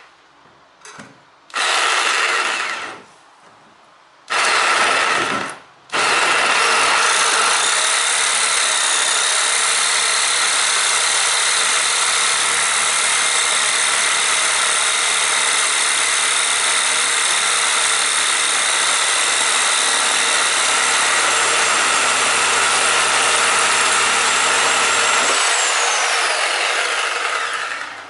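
Reciprocating saw with a metal-cutting blade cutting through the bolt of a jammed car door lock. Three short runs in the first six seconds, then one long continuous cut that winds down near the end.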